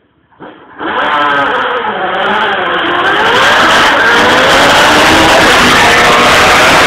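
Single-seater race car engine setting off with a sudden loud burst about a second in, then revving up and down through the gears as the car accelerates up the hill past the camera.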